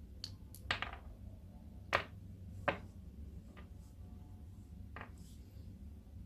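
Faint, scattered clicks and taps of small gearbox parts being handled as a damaged gear and its metal part are pulled out of a cordless screwdriver's gearbox, about seven in all.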